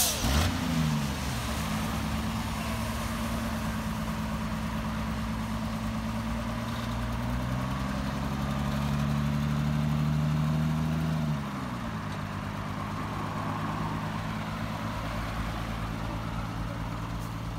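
Diesel truck engines running, one of them revving up about seven seconds in, held at higher revs for about four seconds, then dropping back to idle: a Colt Diesel light truck straining to tow a loaded Fuso truck out of a ditch, an attempt that does not succeed.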